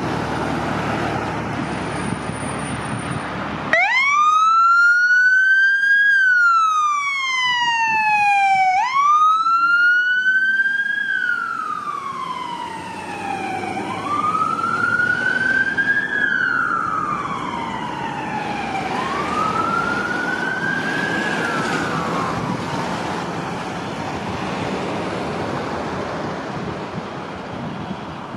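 Fire truck's electronic siren on a wail: the pitch sweeps quickly up and falls more slowly, about once every five seconds. It starts about four seconds in, over vehicle engine noise, and fades away in the second half, leaving road traffic noise.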